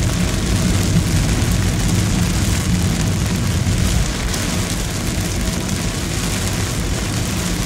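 Heavy rain pelting a car's roof and windshield, heard from inside the moving car, over a steady low rumble of engine and road noise. It eases slightly about halfway.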